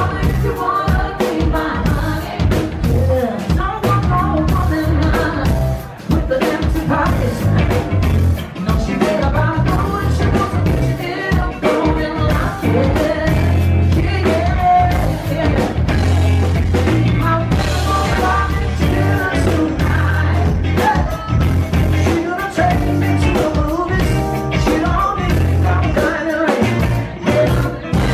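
Live rock band playing: electric guitar and drum kit.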